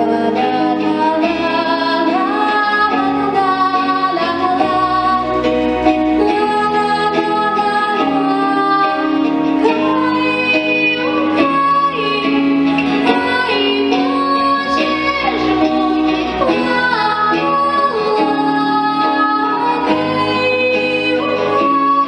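A young girl singing a song into a microphone over a recorded backing track with a steady beat.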